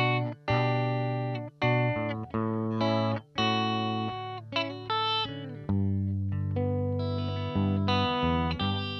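A 1977 Aria Pro II electric guitar playing a riff of clean chords through a Roland JC-120 clean model on a Fender GT100 modeling amp. Each chord is struck about once a second, rings, and some are cut short, heard through 29 feet of cable on a non-isolated power supply.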